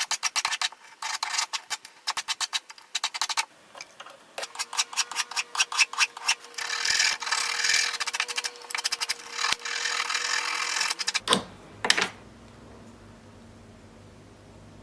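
Quick rasping strokes of a hand tool on sterling silver, in two runs with a short pause between them. Two sharp clicks come near the end, then only a low steady hum.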